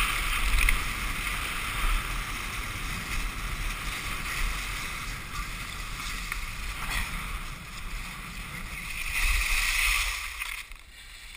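Cross-country skis sliding and hissing over wet snow on a downhill run, with rushing wind buffeting a GoPro's microphone. The hiss swells just before the end, then falls away as the skier slows to a stop.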